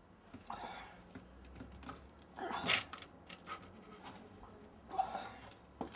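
A man's faint, breathy gasps, a few separate breaths with the loudest about two and a half seconds in, and a short sharp click near the end.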